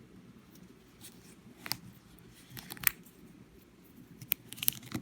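A plastic Wacky Track fidget, a chain of snap-together links, being twisted in the hands, its links making scattered sharp clicks that come more thickly near the end.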